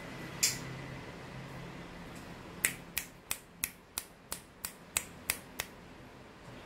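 Finger tapping on a glass vase of water: one tap, then a quick run of about nine sharp taps, roughly three a second.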